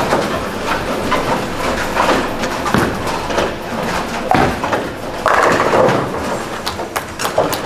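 Bowling alley din: balls thudding on the lanes and pins clattering over a background of voices, with a louder crash a little past the middle.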